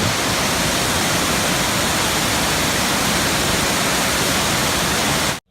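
Waterfall, the steady rush of falling water close by, which cuts off suddenly near the end.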